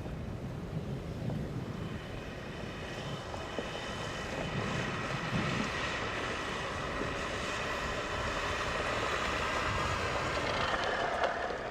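Car driving, its engine and tyre noise building steadily over several seconds, then cut off abruptly at the end.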